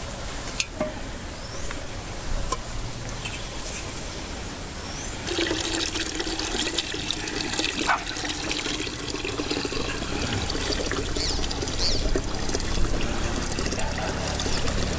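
Water pouring into a large aluminium cooking pot, a steady rushing trickle that starts about five seconds in.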